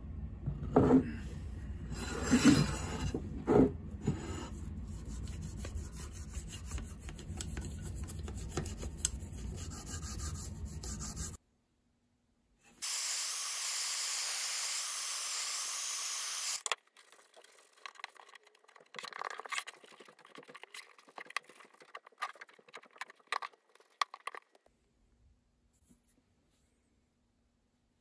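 A toothbrush scrapes and knocks against the inside of a glass jar of homemade paste wax, with three louder knocks in the first few seconds. After a short gap, a heat gun blows steadily for about four seconds, warming the plane body for waxing, then cuts off abruptly. Scattered light rubbing and scraping follow.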